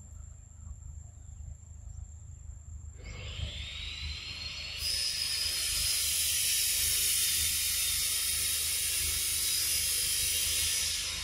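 Cicadas buzzing in a steady, high-pitched drone that swells about three seconds in, gets much louder about five seconds in, and drops away near the end.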